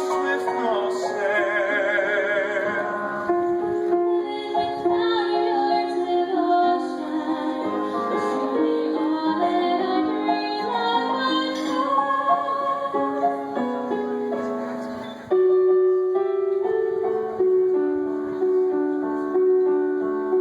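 A woman singing a slow song with vibrato over piano or keyboard accompaniment. About 15 seconds in, the sound changes abruptly and gets louder.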